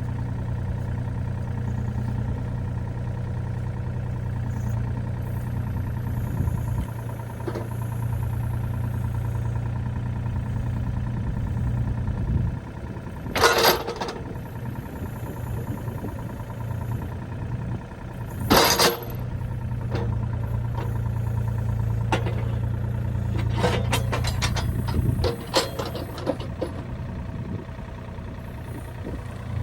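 An engine idling steadily, broken by two short loud noisy bursts around the middle and a run of clicks and knocks near the end.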